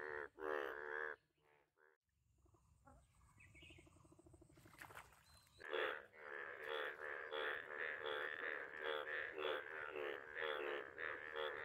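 Indian bullfrogs calling in their breeding chorus. A few loud croaks come at the start, then after a quieter stretch a dense run of rapid, overlapping croaks sets in about six seconds in and keeps going.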